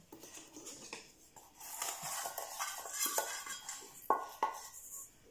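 A utensil scraping and clinking in a saucepan of brown sugar, with a few sharp knocks about four seconds in.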